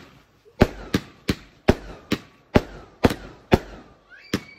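Fireworks going off in a rapid series of sharp bangs, two or three a second, each trailing off briefly, with a short whistle near the end.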